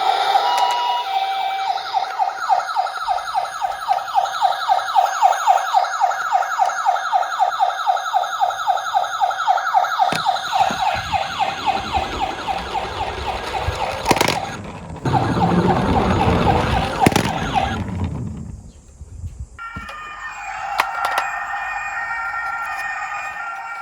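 A toy ambulance's electronic siren warbling rapidly, several pulses a second. Partway through, the rumble of a toy vehicle rolling down a plastic slope joins it, with a couple of sharp clicks. The siren stops, and near the end a different electronic tone pattern begins.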